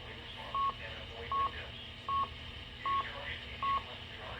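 Electronic alert beeper sounding short beeps at one steady pitch, about every three-quarters of a second, six times, over faint radio speech.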